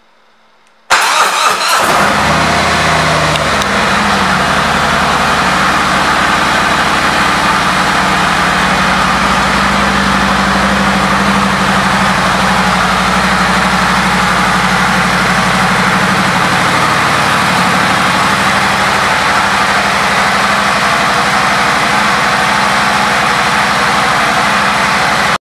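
2017 Harley-Davidson Street Glide Special's Milwaukee-Eight V-twin started up about a second in, catching at once, then idling steadily.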